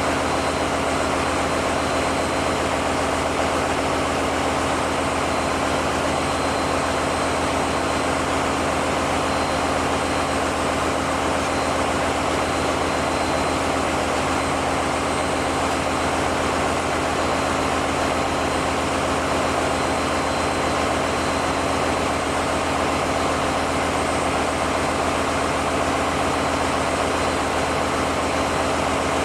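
Steady, unbroken engine-room noise of running diesel generator engines, a constant hum under a broad mechanical din with a faint high whistle.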